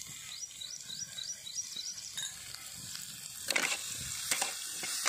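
Diced potatoes frying in hot ghee in a steel kadhai, a steady sizzle. From about three and a half seconds in, a metal spatula stirs them, scraping against the pan in short strokes.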